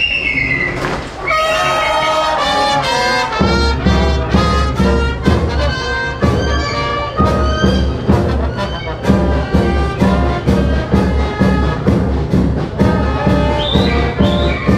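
Brass band playing, with trumpets and trombones carrying the melody. The band comes in about a second in, and a heavy bass with a steady drum beat of about two strokes a second joins around three and a half seconds in.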